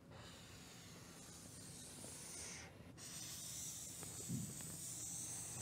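Felt-tip marker drawing on a whiteboard: two long, faint, hissing strokes with a short break about three seconds in.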